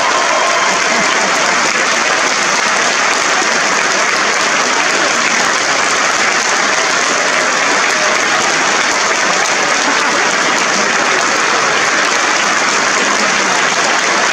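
A crowd applauding, many hands clapping in a dense, steady, unbroken wash.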